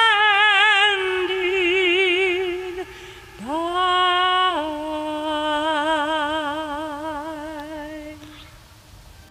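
A woman singing unaccompanied: two long held notes with wide vibrato, the second sliding up into its start, then stepping down a little and fading away near the end.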